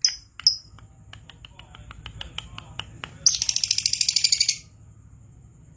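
Lovebird singing: a few sharp chirps, then a quickening run of short clicking notes, then a loud, fast chattering trill about three seconds in that stops abruptly after about a second and a half. A faint steady high whine runs underneath.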